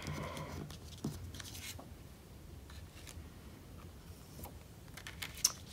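Photo cards being handled on a sheet of paper: a few faint taps and light scrapes as one card is lifted off and the next is laid down, the sharpest click near the end.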